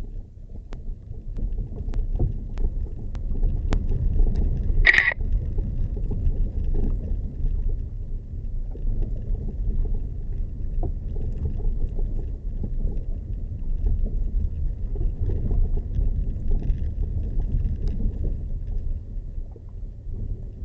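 Steady low rumble of a vehicle driving along a rough off-road track, with scattered small knocks and one short high-pitched chirp about five seconds in.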